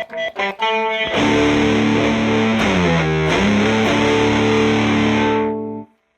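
Electric guitar played through a telephone pedal's fuzz circuit: a quick run of repeated picked notes, then one held, heavily fuzzed chord. The chord's pitch dips and comes back once midway, and it cuts off suddenly near the end.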